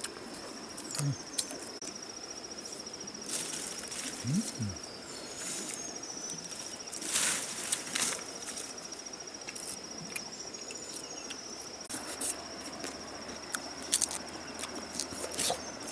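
Steady, high-pitched insect trill, rapidly pulsed and unbroken, with leaves rustling now and then.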